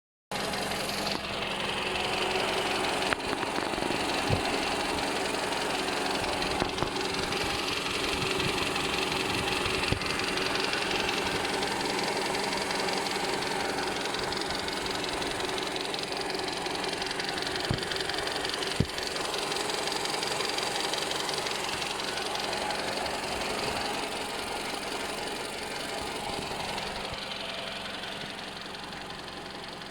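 Toyota Camry XV55's 2.5-litre 2AR-FE inline-four running at operating temperature, with a knock that the owner is recording. A few sharp clicks stand out at irregular moments over the steady running.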